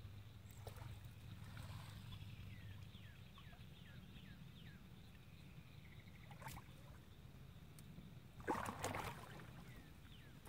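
Small bass splashing briefly at the water's surface as it is landed by hand, a couple of seconds before the end. Earlier, a run of faint short high chirps over a low steady hum.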